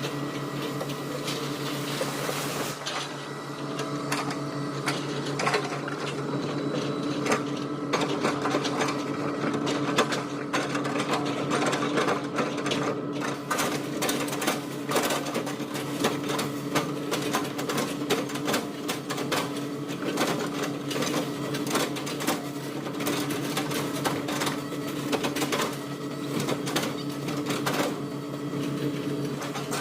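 Hitachi excavator's diesel engine running steadily under load, with dense, irregular clattering and cracking as the machine chips oil palm trunks.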